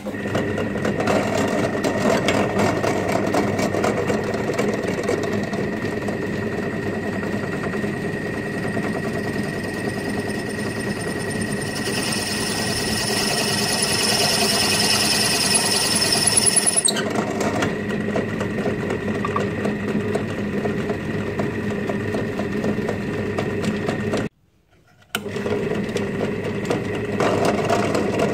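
Drill press motor running with a steady whine as a 25 mm spade bit bores into a soft white cast block. A brighter, hissing scrape of the cut is added for a few seconds in the middle. Near the end the sound breaks off for about a second, then the drill press runs on with a cone-shaped router bit cutting.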